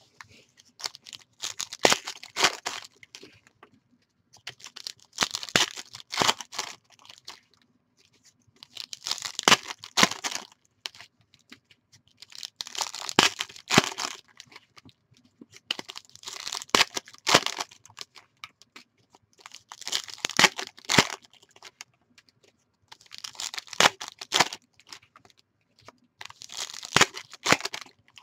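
Panini Donruss basketball card packs being torn open and their wrappers crinkled by hand, one pack after another, in bouts of crackly tearing about every three to four seconds.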